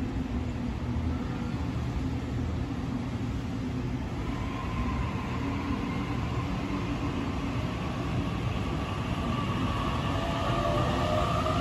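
Sydney Trains Tangara double-deck electric train pulling along the platform, with a steady rumble of wheels and running gear. From about four seconds in, the traction motors' whine rises in pitch and grows louder as the train gathers speed.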